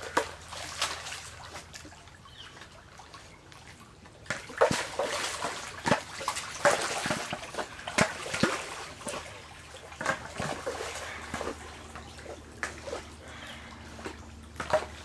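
Pool water splashing and sloshing as a Labrador swims and paddles after a ball, with many irregular splashes that grow busier and louder from about four seconds in.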